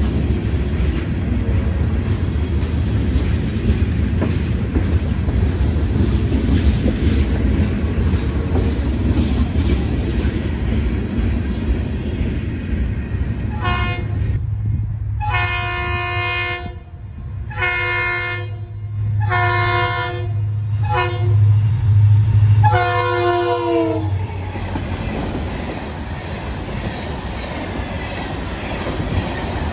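Loaded freight cars rolling past with a steady rumble and wheel clatter. About halfway through, an approaching Florida East Coast freight locomotive sounds its horn for a grade crossing: a brief toot, then long, long, short, long. The last blast drops in pitch as the locomotive passes, its diesel engine rumbling loudly, and then the cars clatter by.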